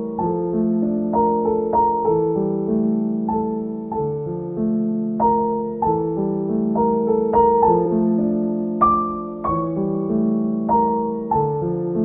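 Background piano music: a slow melody of single struck notes over held lower chords, each note fading after it is played.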